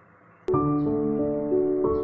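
Gentle background music with held, ringing notes, starting abruptly about half a second in.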